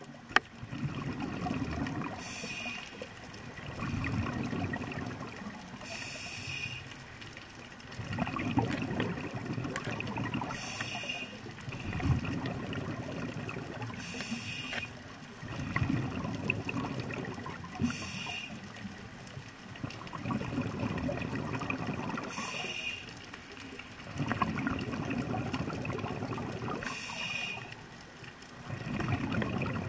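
A scuba diver's regulator breathing underwater. About every four seconds there is a short hiss of inhalation, followed by the low bubbling rush of exhaled air.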